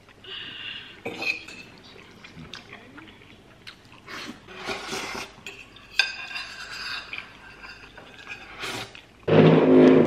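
A metal fork clinks and scrapes against a bowl as the last of a spaghetti bolognese is scraped up, with a sharp clink about six seconds in. Near the end there is a loud, low sound lasting under a second.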